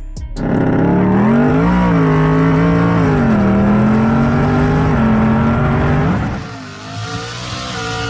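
Car engine running hard under load, its pitch rising briefly then holding steady before easing off about six seconds in and continuing more quietly.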